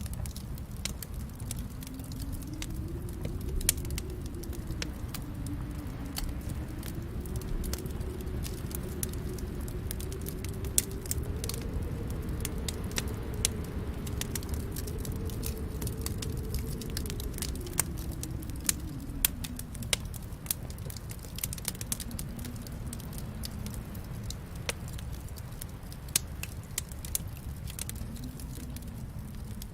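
Wood fire in a fireplace crackling, with frequent sharp pops and snaps over a low, steady rumble of burning.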